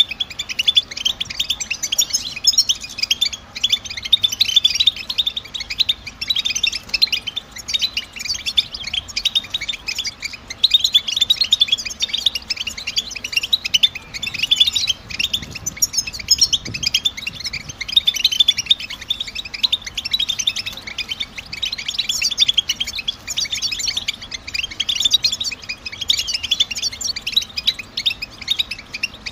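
European goldfinches chattering: a dense, unbroken run of quick, high, overlapping twittering chirps from several birds at once.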